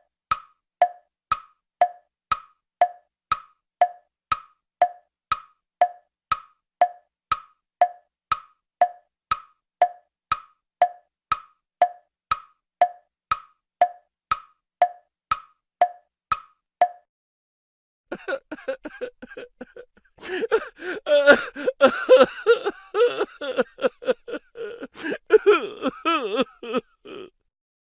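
Tick-tock sound effect: sharp clicks about twice a second, alternating between a higher and a lower pitch, stopping about 17 seconds in. After a short gap, a different, dense and jumbled sound with many quick overlapping strokes fills the last ten seconds.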